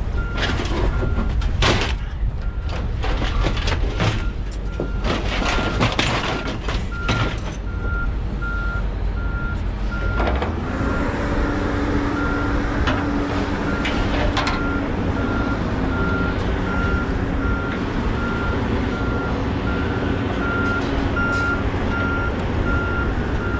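A vehicle's reversing alarm beeping steadily at an even pace throughout, over clanks and rattles of scrap metal being handled during the first seven or eight seconds. From about ten seconds in, a vehicle engine runs steadily underneath.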